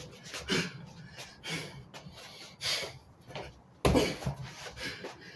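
Hand strikes landing on an Everlast freestanding punching bag in an irregular run of dull knocks, the loudest about four seconds in, mixed with quick exhales of breath.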